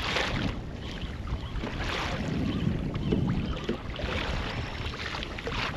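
Wind buffeting the microphone over choppy water lapping and splashing against a kayak hull, the splashes coming in surges about every two seconds.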